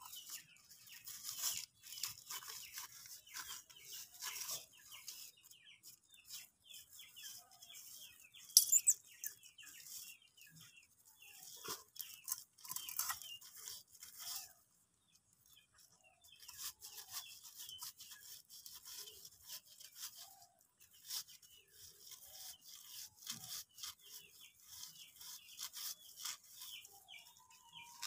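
Rapid, scratchy scraping as small catfish, rubbed in ash, are scraped clean against a fixed boti blade, with a short pause about halfway through.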